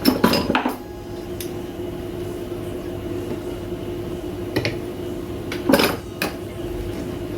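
Small metal hand tools clicking and clinking on a workbench during work on a sewing-machine motor's foot pedal: a quick cluster of taps at the start, then a few single sharp clicks, the loudest about six seconds in, over a steady low hum.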